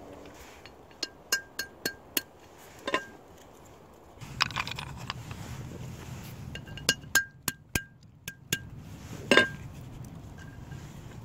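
Walnuts being cracked with a hatchet against an upturned cast iron pot: a series of sharp knocks, each with a brief metallic ring, in two runs, the loudest strike near the end.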